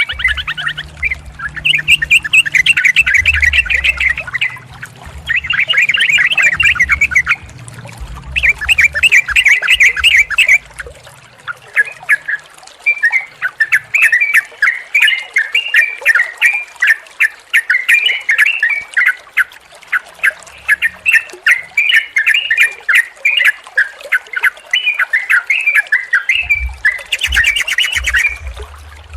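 Yellow-vented bulbul (trucukan) singing: bursts of rapid bubbling, chattering notes every couple of seconds, then from about twelve seconds in a long unbroken run of song phrases. A low rumble sits under the first bursts and returns near the end.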